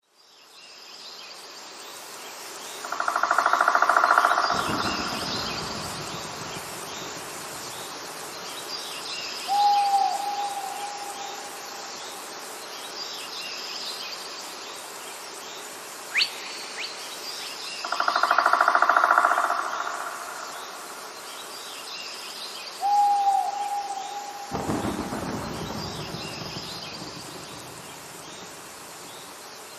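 Forest ambience with birds calling over a steady insect hum. Faint high chirps repeat every few seconds, and short hooked calls and buzzy calls come twice each. Two low rumbles come in, one about four seconds in and one near twenty-five seconds.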